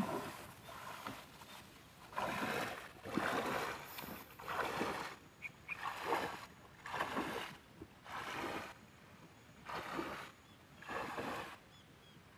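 Legs wading through shallow swamp water and dense water plants: repeated swishing splashes, about one stride every second or so.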